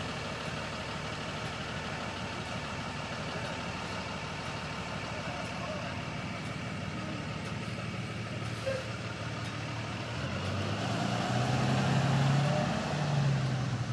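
IC CE-series school bus engine idling at the stop, then running louder as the bus pulls away about ten seconds in.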